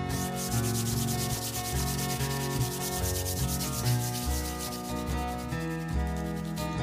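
Sandpaper rubbing to and fro along the edge of an old weathered hardwood board, a steady scratchy rasp as the splinters are smoothed off.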